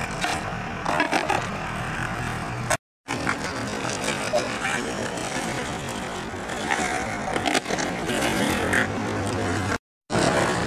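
Skateboard wheels rolling on rough asphalt, a steady rumble with scattered sharp knocks of the board being popped and landing during flip tricks. The sound cuts out briefly twice.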